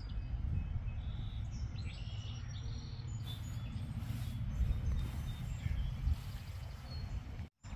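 Birds chirping here and there over a low steady rumble. The sound cuts out for a moment near the end.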